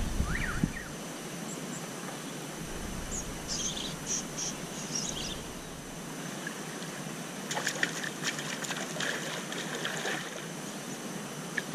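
Shallow river flowing: a steady soft hiss of water, with a few short high chirps in the first half and a run of faint clicks in the second half.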